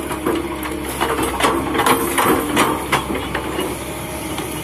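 Kobelco hydraulic excavator's diesel engine running under load while it digs, with a string of sharp knocks and clanks from the bucket and working gear, thickest in the first three seconds and easing off near the end.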